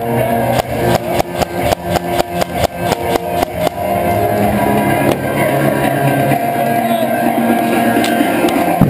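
Rock-style background music with electric guitar and drums, with a fast, even beat over the first few seconds.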